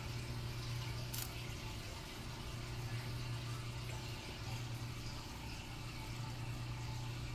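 Faint steady sizzle of a tortilla warming in an oiled frying pan on an electric stove, over a constant low hum, with one light click about a second in.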